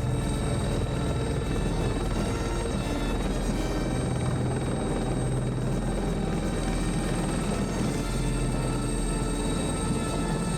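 Helicopter in flight: a steady rotor beat with a thin high whine running over it, with film music underneath.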